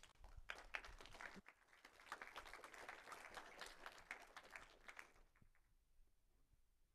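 Audience applauding, faint, fading away about five seconds in.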